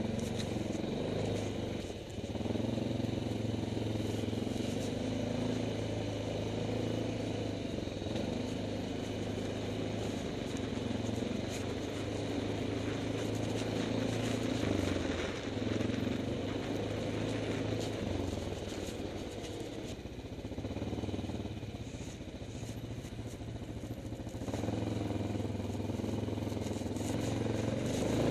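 Quad (ATV) engine running as it rides a rough forest trail, its note easing off briefly about two seconds in and again about two-thirds of the way through, then picking up. Knocks and rattles from the bumpy ride run throughout.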